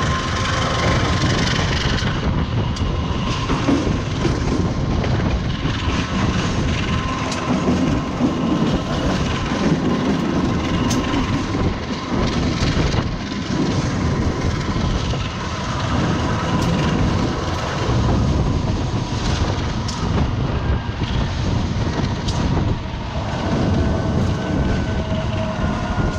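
Passenger train and its diesel locomotive running along the track: a steady rumble of engine and wheels with a faint steady whine, and scattered sharp clicks as the wheels cross rail joints and points.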